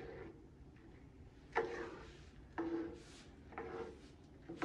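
Plastic ladle stirring a pot of tomato broth and rice, scraping and knocking against the pan about once a second.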